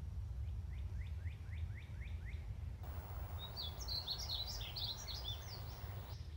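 Birdsong over a steady low rumble: first a run of about eight quick downslurred whistles, about four a second, then from about halfway through a painted bunting's high, fast, jumbled warbling song lasting about three seconds.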